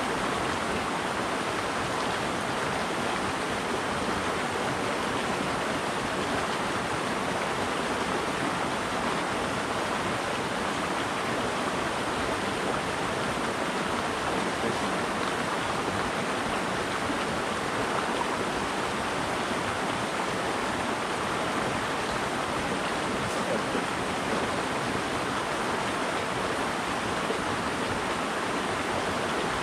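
Creek water rushing steadily over rocks in a shallow riffle, a constant even hiss with no break.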